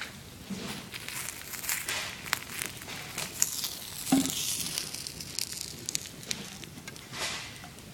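A small boat burning on the water, its flames crackling and hissing with irregular sharp pops. There is a dull knock about four seconds in.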